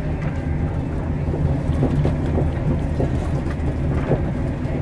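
Steady low rumble and hum of an express train running, heard inside the passenger carriage, with faint knocks here and there.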